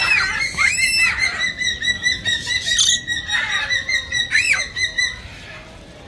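Caged parrots calling loudly: a few piercing calls that each rise and fall in pitch, over a steady shrill chorus, until the calling drops away about five seconds in.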